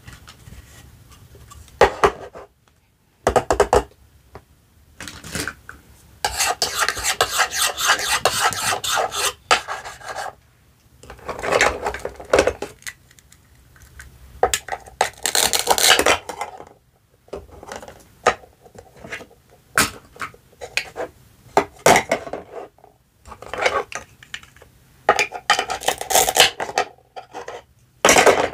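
Plastic toy fruit held together with velcro being sawn and pulled apart with a toy knife on a wooden cutting board. Repeated scratchy velcro rasps, one lasting about three seconds, come between short clacks of plastic pieces on the board.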